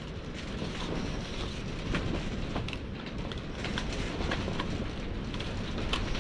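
A knife cutting a slit in a thin plastic cup: irregular sharp snaps and clicks of the plastic giving way, over a steady rushing background noise.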